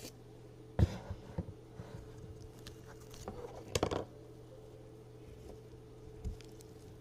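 Slime being squished and stretched by hand, with sticky squishes and small popping clicks, loudest about a second in and again in a cluster around four seconds in, over a faint steady hum.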